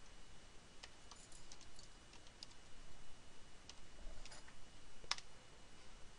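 Faint, irregular keystrokes on a computer keyboard as a password is typed, a scattering of light clicks with short pauses between them.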